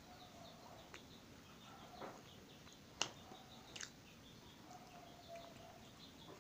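Faint birds chirping in the background, with a few sharp mouth clicks from eating bread, the loudest about three seconds in.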